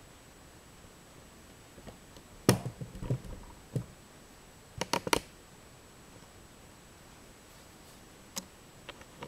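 Scattered sharp clicks and taps: one about two and a half seconds in, a quick run of three around five seconds, and two fainter ones near the end.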